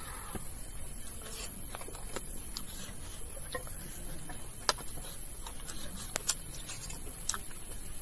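Eating by hand from a metal plate: quiet chewing and mouth sounds with scattered sharp clicks and smacks, a few louder ones in the second half.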